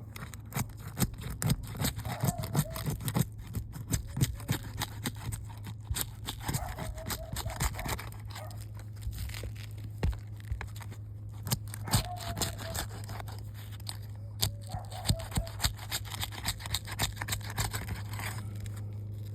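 Roof shingles being pried and worked loose by hand: irregular scraping, tearing and sharp clicks, over a steady low hum.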